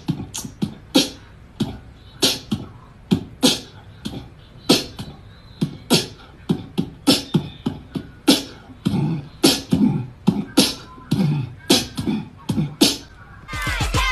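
Beatboxing: a steady run of sharp mouth-made drum beats, about two to three a second.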